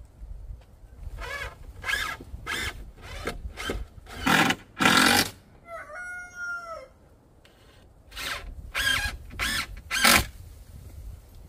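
Cordless drill running in about ten short bursts, in two runs with a pause, driving screws into a wooden roof edge. A brief wavering animal call sounds in the pause about halfway.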